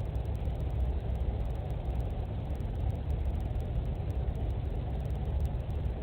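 Steady low rumbling noise of a thunderstorm heard indoors through a pet camera's small microphone, with no distinct events.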